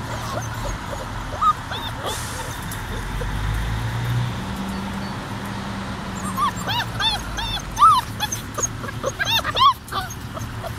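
Saint Bernewfie puppies whimpering and yipping in short, high cries: a few scattered ones early, then a quick run of cries in the last few seconds.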